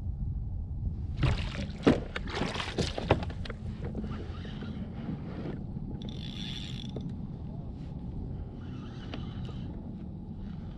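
Steady low rumble of wind and water around a fishing kayak, with a cluster of sharp clicks and knocks between about one and three and a half seconds in, and a brief high whine around six seconds in.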